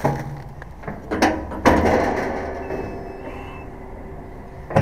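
Drum-type inlet of an underground waste container being turned by its handle to drop a rubbish bag in: a few hard metallic clunks, the loudest about one and a half seconds in, ringing away afterwards.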